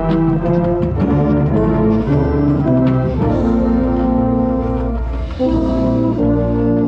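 Marching band brass playing loud, held chords that move from one to the next, with a brief dip in level about five seconds in.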